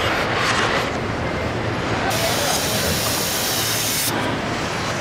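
Assembly-plant floor noise, with a burst of compressed-air hiss from a pneumatic line starting about two seconds in and lasting about two seconds.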